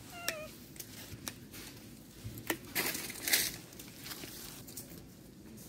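A baby macaque gives one short squeak just after the start. Scattered clicks and crunching, rustling noises follow, loudest about three seconds in.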